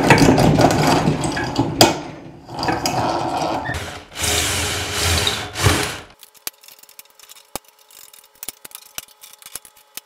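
Drill press running and drilling through metal tubing, in several loud stretches with short breaks. About six seconds in it stops, leaving a faint steady hum and scattered light clicks.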